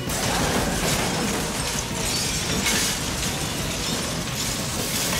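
Loud crashing and breaking noise: a dense, continuous clatter with a few sharper smashes.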